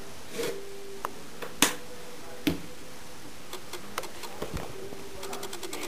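A few scattered sharp clicks and knocks, the loudest about a second and a half in, then a quick run of ticks near the end, over a faint steady hum.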